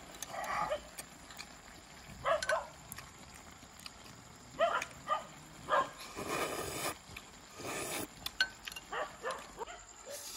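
Close-up eating sounds: short wet chewing and smacking noises, then two long slurps of broth from a spoon about six and eight seconds in.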